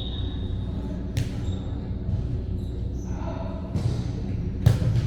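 A ball thumping several times on a hard court floor in a gym, with shoe squeaks and a low murmur of voices.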